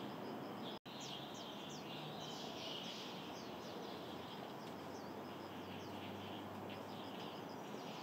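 Small birds chirping: quick downward-sweeping notes and a steady run of high repeated peeps, over constant background noise. The sound drops out completely for an instant about a second in.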